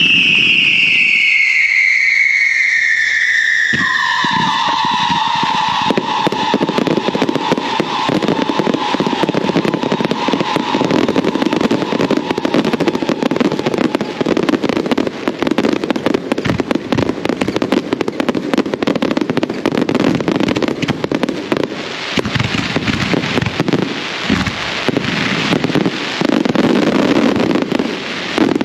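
Fireworks display: a loud whistling firework opens with a whistle that falls in pitch over about three seconds. A second, lower whistle then runs for about nine seconds, over dense crackling and popping of bursting fireworks that goes on without pause.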